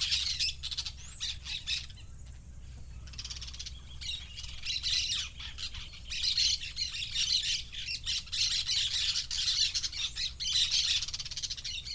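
Dense chorus of many birds chirping and squawking over a low steady hum. It thins out for about a second some two seconds in, then comes back just as thick, and stops abruptly at the end.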